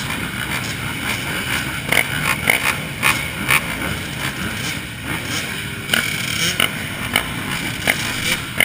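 Motorcycle engine running steadily, with a scattering of sharp clicks.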